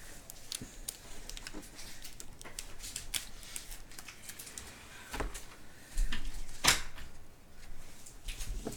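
Trading cards and their packaging being handled on a table: scattered light clicks and rustles, with a louder clatter about six to seven seconds in.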